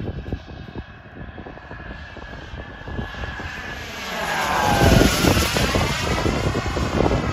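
Turbine engine of a large radio-controlled J-10 model jet flying past: a jet whine that grows louder, peaks about five seconds in and drops in pitch as the jet passes.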